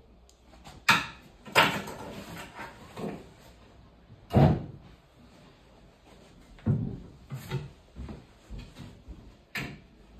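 Hollow knocks and bumps of melamine-faced chipboard kitchen cabinet panels as the corner post is handled and pressed into place against the units: about six sharp knocks with lighter rattling between them.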